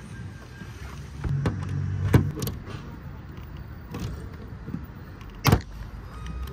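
Hand pop-rivet gun squeezed several times on a rivet set through the aluminium mounting sheet into the roof, making metal clicks, then a sharp snap about five and a half seconds in as the rivet's mandrel breaks off and the rivet is set.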